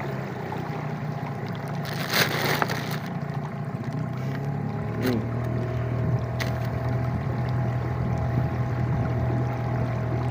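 Small boat's motor running steadily through floodwater, a constant low hum, with a brief rush of noise about two seconds in and a couple of sharp clicks a few seconds later.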